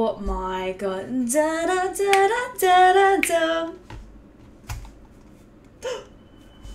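A woman's voice singing a short melodic line with no accompaniment, in a few phrases that stop about four seconds in. After a few faint clicks, a faint steady high tone starts near the end.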